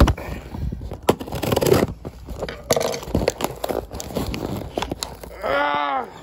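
A small cardboard package being handled and opened: scraping, crinkling and a string of knocks. Near the end, a short hum-like vocal sound that rises and falls in pitch.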